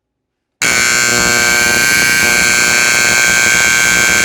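Federal Signal Vibratone AC vibrating horn sounding a continuous buzz at its loudest volume setting, starting abruptly about half a second in. Its coil vibrates a plate against the volume screw, giving a harsh, steady, buzzing tone.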